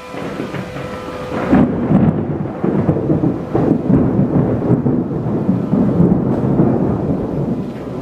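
Long rolling thunder rumbling over rain, swelling in about a second and a half in. At the start, the steady tone of a motor-driven outdoor warning siren is still faintly heard before the thunder buries it.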